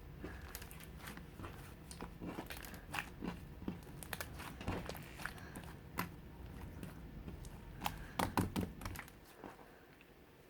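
Slime being kneaded, squished and stretched by hand while being mixed. It makes irregular crackling clicks and small pops, with a quick cluster of louder pops about eight seconds in.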